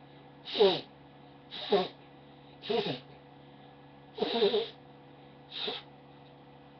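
A person blowing their nose with a loud honk, five short blasts about a second apart, the fourth one a little longer.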